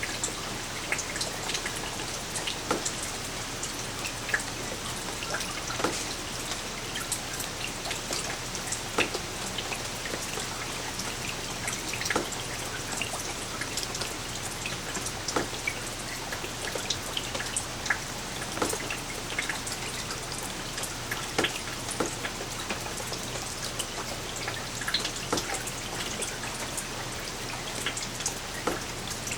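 Light rain falling steadily, a soft hiss with many separate drops pattering and ticking on a hard surface nearby.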